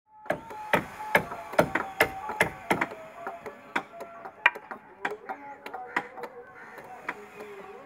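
Hammer driving a long iron nail into the wooden planking of a boat hull. A quick run of sharp blows, about two a second for the first three seconds, then slower, lighter strikes.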